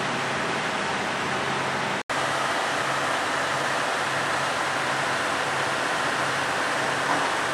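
Steady running noise of idling diesel railcars, their engines and roof radiator fans, with a faint low hum underneath. The sound cuts out for an instant about two seconds in.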